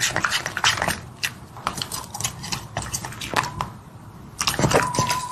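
A dog chewing and crunching on something: many sharp, irregular crunches, with a brief steady high squeak near the end.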